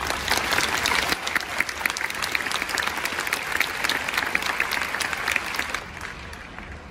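Stadium crowd applauding, a dense patter of many hands clapping that comes in suddenly and fades out near the end, as the teams break from their huddles for kick-off.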